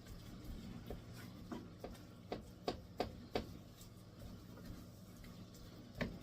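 A utensil tapping and scraping in a pan, in irregular clicks several times a second at first and more sparsely later, while ground beef browns. A steady low hum runs underneath.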